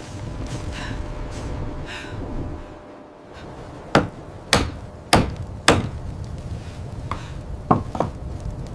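Sharp wooden knocks: four in a row about half a second apart, then three fainter ones near the end.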